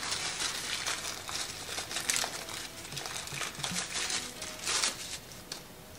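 Thin packaging wrap crinkling and rustling in the hands as a USB cable is unwrapped from it, in irregular bursts that swell about two seconds in and again near five seconds.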